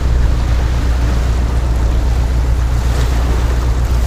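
Wind buffeting the microphone with a steady low rumble, over the wash of sea waves breaking on rocks.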